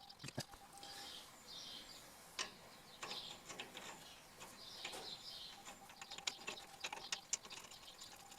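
Faint, scattered metal clicks and taps from handling the pinion nut and flange of a GM 10-bolt 7.5-inch rear axle, with birds chirping in the background.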